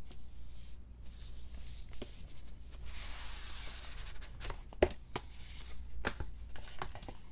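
Handling of a boxed K-pop album's cardboard and paper packaging: a soft sliding rustle, then several light knocks and clicks, the sharpest nearly five seconds in.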